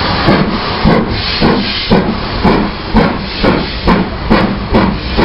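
Steam locomotive chuffing, its exhaust beats coming about two a second and quickening slightly as it pulls away.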